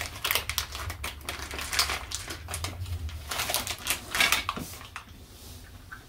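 A plastic candy bag of Airheads Bites being handled: a quick run of crackles, rustles and clicks that dies down about five seconds in.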